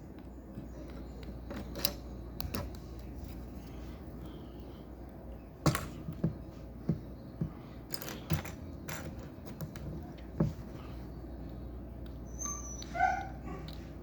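Lego pieces clicking and knocking as they are handled and pressed together, about ten sharp clicks through the middle. A dog gives one short bark near the end.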